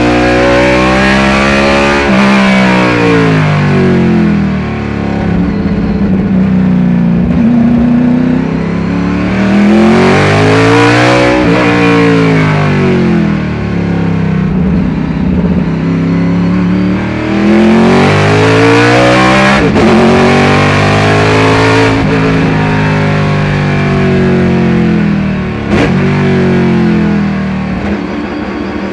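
1976 Chevy IMSA Monza race car's engine under hard racing load, heard from inside the cockpit. The engine note climbs and falls back several times as the car accelerates and slows for corners.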